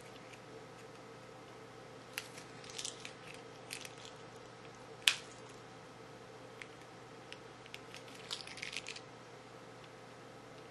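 Small plastic clicks and crinkling from a Figma action figure and its plastic parts being handled, with a sharp click about five seconds in and a cluster of crinkly rustles near the end, over a faint steady hum.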